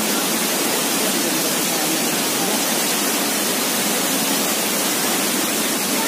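Ditumabo Falls, a tall waterfall plunging into a rocky pool, making a steady, even rush of falling water.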